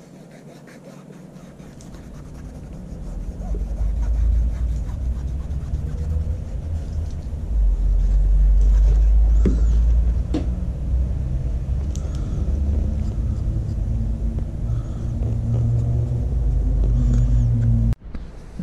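A loud, deep rumble that rises and falls, building over the first few seconds and cutting off suddenly near the end, with a few faint clicks on top.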